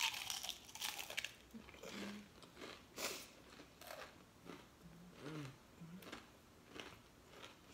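Close-up bite into a super crunchy homemade battered onion ring, then chewing with a run of crunches that grow fainter.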